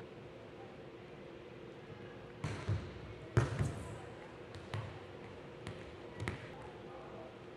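A volleyball being hit and bouncing on a hardwood gym floor: about half a dozen thuds with a reverberant echo, the loudest about three and a half seconds in.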